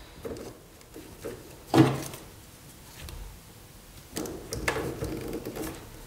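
Handling noise of electrical cable and earth sleeving being worked by hand, with one sharp click about two seconds in and a stretch of irregular rustling near the end.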